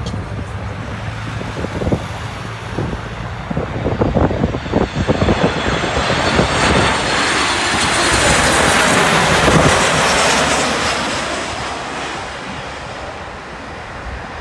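Jet airliner passing on its landing approach: a broad jet rush that swells to its loudest about two thirds of the way through, then fades away.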